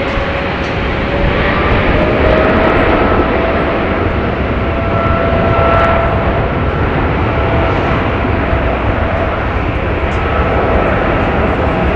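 Boeing 777 freighter's twin GE90 turbofan engines running at high power as the jet rolls down the runway: a loud, steady jet roar with an engine whine that rises in pitch over the first few seconds and then holds.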